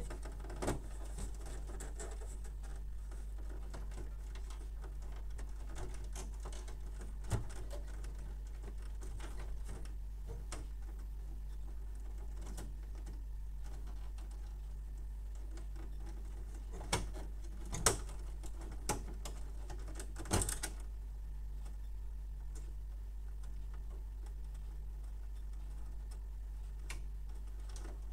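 Scattered small clicks and taps as a wire harness is pressed into the plastic cable guides of a laser printer's chassis, over a steady low hum. The sharpest clicks come in a cluster past the middle.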